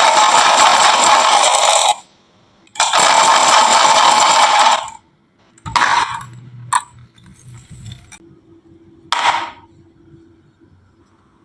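Marbles rolling down a marble-run track with a loud rattling roll, in two stretches of about two seconds each with a short break between, then a few separate clacks as marbles drop and strike the track.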